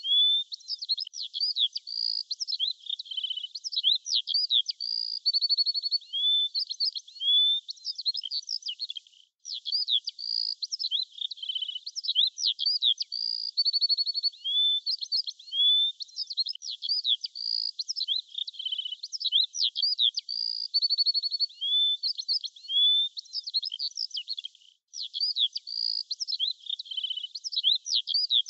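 Birds singing: a busy, high run of chirps, sweeping whistles and short trills, with no low sound at all. It is a short recording looped over and over, with brief breaks about nine and twenty-five seconds in.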